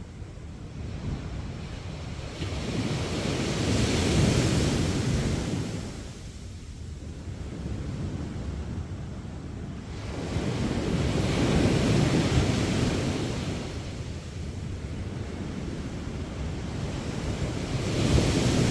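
Sea waves breaking on the beach and washing up the sand, the surf swelling and falling back three times, about eight seconds apart.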